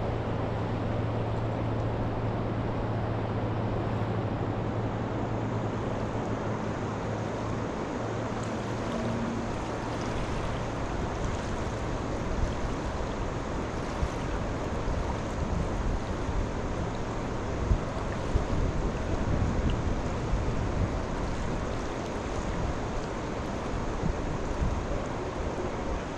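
Steady rushing of river water, with wind gusting on the microphone in the second half. A low steady hum runs for the first ten seconds or so, then stops.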